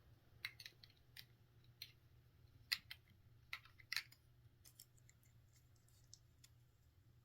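Faint, irregular clicks and light taps, about a dozen scattered through, the loudest near the middle: small hard objects being handled.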